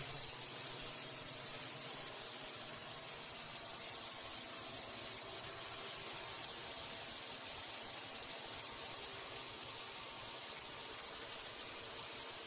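Steady, even hiss of background noise, strongest in the highs, with no distinct events.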